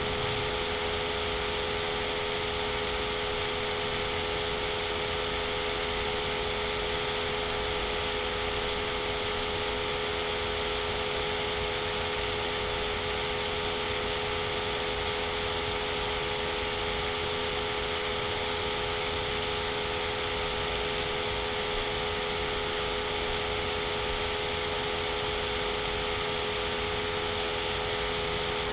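Steady background hum and hiss with a few constant tones, unchanging throughout.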